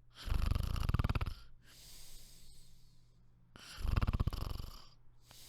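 A person snoring as the sleeping bear: two loud rattling snores about a second long, one near the start and one about four seconds in, each followed by a softer breath out.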